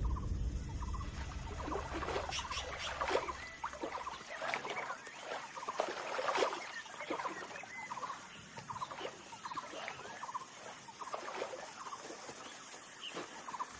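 A dense run of short, chattering animal calls, many overlapping, repeating throughout.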